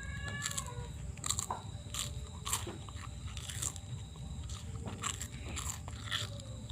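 Massage on bare skin: hands rubbing and pressing, with irregular crackling and squelching noises about once or twice a second, over a steady low hum. A short falling squeal opens it.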